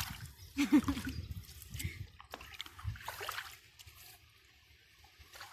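Water dripping and splashing from a kayak paddle as it dips in the lake, a few irregular splashes that die down after about three seconds.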